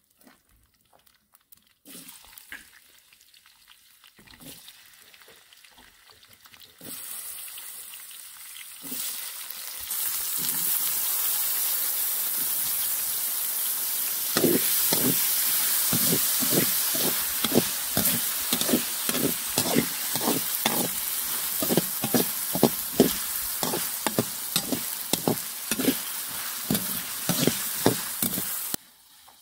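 Diced potatoes sizzling in hot oil in a blackened iron wok, the sizzle turning loud about a third of the way in. From about halfway, a metal slotted spoon scrapes and turns them, about two strokes a second.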